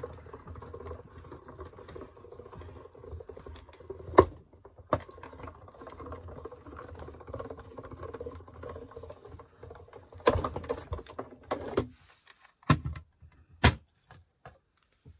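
Hand-cranked die-cutting and embossing machine being turned, its rollers pulling the plate sandwich of lace and dampened paper through with a steady grinding rumble and a few sharp clicks, embossing the lace pattern into the paper. The cranking stops about twelve seconds in, followed by several separate clicks and knocks.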